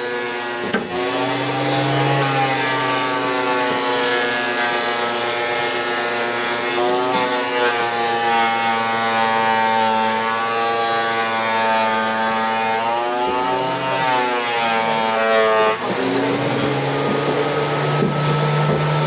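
Electric woodworking power tool running continuously, its motor pitch sagging and recovering several times as it cuts into the wood under load.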